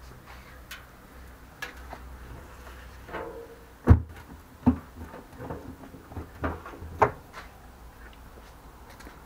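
Handling of a homemade steam wax melter drum: a scatter of sharp knocks and clunks as hands work inside it and take up its lid, the loudest about four seconds in.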